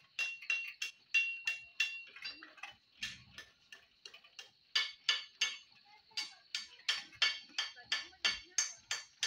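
Hand-cranked sprocket-and-chain height adjustment on a band saw mill head clicking evenly, about three clicks a second, as the crank is turned to raise or lower the saw head.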